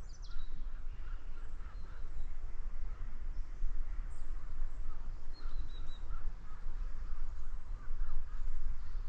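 Birds calling on a riverbank: short, scattered chirps over a steady low rumble on the microphone.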